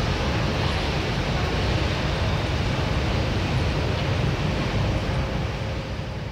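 Airbus A320's jet engines running at idle as the airliner rolls onto its stand: a steady rushing noise with a low rumble and a faint steady whine, easing off near the end.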